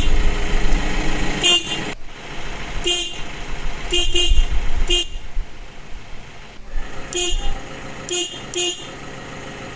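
Stock horn of an Isuzu Traviz L sounded in about eight short toots, with relays clicking as it is switched. The horn is small and weak.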